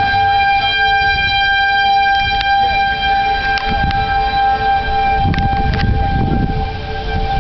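Outdoor warning siren sounding a steady, unchanging chord, with wind rumbling on the microphone, strongest about two-thirds of the way through, and a few faint clicks.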